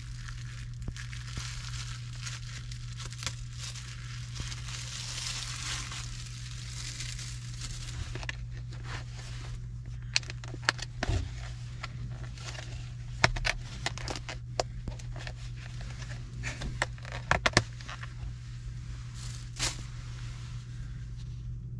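Crinkling of a plastic cutlery wrapper being pulled off, then a run of sharp clicks and snaps from a plastic takeout bowl's clear lid being opened and a plastic fork knocking against the bowl. A steady low hum sits underneath.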